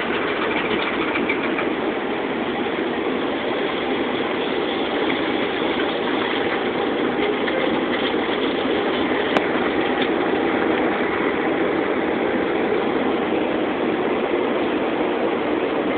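Automatic tunnel car wash heard from inside the car: a steady rushing noise of water spray and wash machinery on the windshield and body. A single sharp click comes about nine seconds in.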